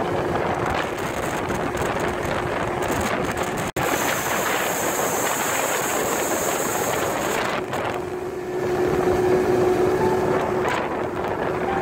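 Yamaha 150 outboard motor running a small fishing boat at speed, a steady engine hum under the rush of wind on the microphone and the hull cutting through the water.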